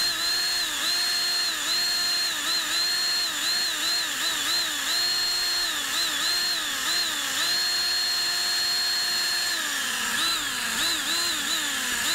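Electric drill spinning a rubber vinyl-decal eraser wheel against car paint, rubbing off the decal. The motor's whine sags in pitch over and over as the wheel is pressed in and bogs down, then recovers. It holds steady for a couple of seconds, winds down briefly about ten seconds in, and then goes back to sagging and recovering.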